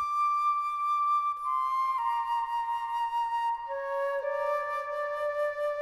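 Background music: a slow melody of long held notes on a wind-like instrument, with a second, lower line of notes joining about four seconds in.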